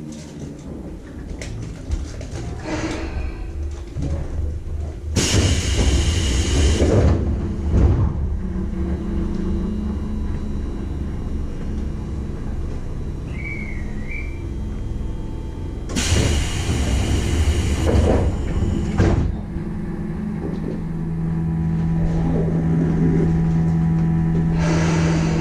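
Tobu 10030-series electric train standing at a station: two loud bursts of compressed-air hiss about ten seconds apart, from the pneumatic door gear working the sliding doors, over a low steady rumble. About twenty seconds in, a steady low hum starts.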